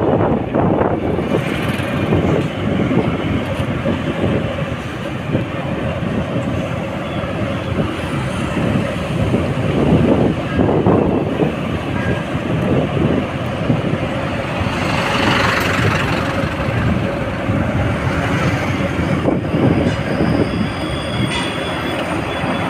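Steady rumble of a vehicle in motion on a road: engine running, with road noise and wind buffeting the microphone.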